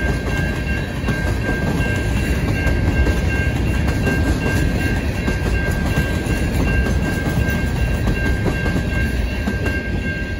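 Freight train's hopper cars rolling past at speed: a steady, heavy rumble of steel wheels on rail with a thin steady whine above it. It begins to tail off as the last car goes by near the end.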